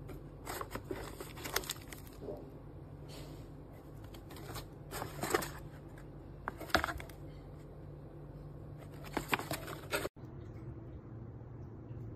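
Kraft paper pouches crinkling and rustling as they are handled, in several short bursts, over a steady low hum.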